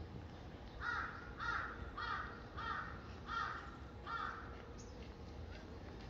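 A bird giving six harsh calls in a row, evenly spaced about two-thirds of a second apart, then falling silent for the last couple of seconds.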